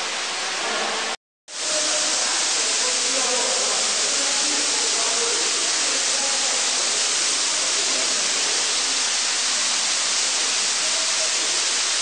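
Steady rushing noise of an underground waterfall pouring down inside a rock cave. The sound cuts out completely for a fraction of a second just over a second in, then returns at the same level.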